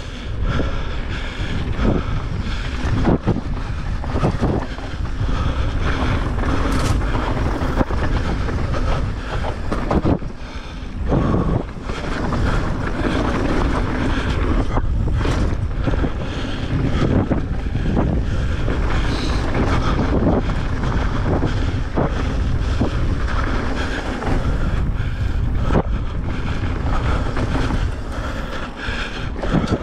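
Wind buffeting the action-camera microphone while a mountain bike rolls fast over a dirt trail, with a steady rumble from the tyres on the ground and frequent knocks and rattles from the bike over bumps.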